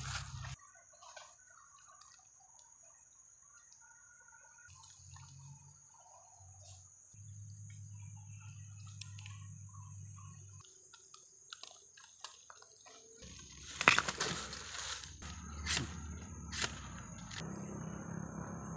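Quiet forest ambience with faint bird chirps, then dry bamboo leaf litter and stems crackling and snapping underfoot, with a few sharp cracks about three-quarters of the way through.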